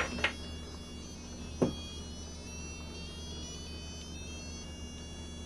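Handheld EMF meter sounding its alert: a steady high-pitched electronic whine of several tones that drift slightly in pitch, over a low hum, as it reads high next to an open electrical panel. Two short clicks sound near the start and about a second and a half in.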